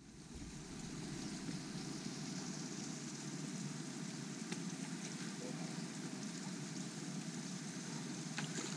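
Steady rushing outdoor noise picked up by a GoPro camera's microphone, fading in from silence over the first second, with a few faint knocks.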